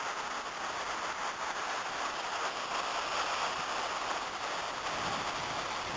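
A river running high after a week of rain: a steady, even rushing hiss with no separate events.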